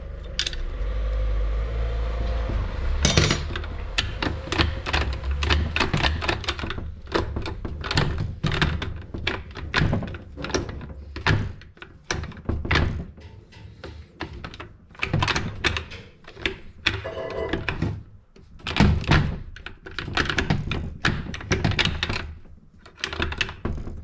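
Repeated metal knocks and clunks from hand work on the shift-lever housing of a Tofaş four-speed gearbox, coming irregularly, many times a second at their busiest. A low rumble runs under the first couple of seconds.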